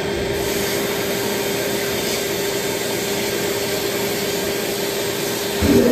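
Abrasive blast cabinet in use: a steady hiss of compressed air and blasting media stripping rust from a brake part, with a steady hum underneath. It swells briefly near the end, then cuts off.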